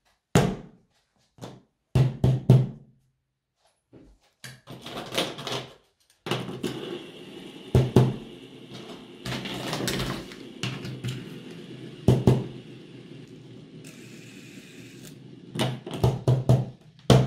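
Toys set down on a tabletop with soft knocks and thumps, then a steady hum under further knocks as more toys are placed.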